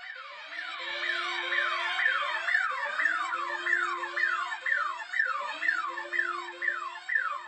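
Emergency siren sound effect: a rapid series of falling wails, about two or three a second, over a low steady tone that comes in three stretches, cutting off suddenly at the end.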